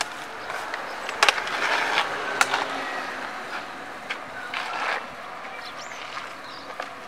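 A car rolling slowly past close by on an asphalt street, its tyre and engine noise swelling and fading over a few seconds, with two sharp knocks near the start.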